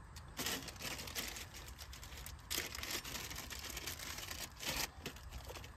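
Plastic parts bag crinkling and antenna cable rustling as the wiring is handled by hand, in irregular rustles that are strongest about half a second in, around two and a half seconds and near five seconds.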